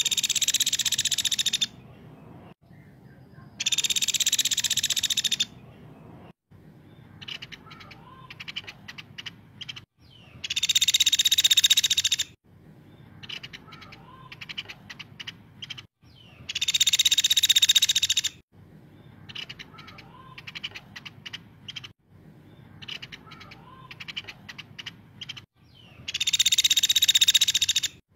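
Caladi woodpecker calling: five loud, harsh, rattling trills of about two seconds each, a few seconds apart, with quick sharp ticking notes between them.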